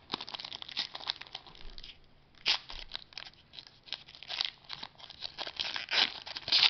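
Foil wrapper of a trading-card pack being torn open by hand and crinkled: a run of irregular crackles and rips, the sharpest about two and a half seconds in and again near the end.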